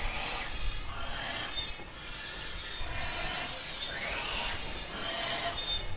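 BR Standard Class 4 2-6-4 tank engine at low speed: a steady low rumble with steam hissing.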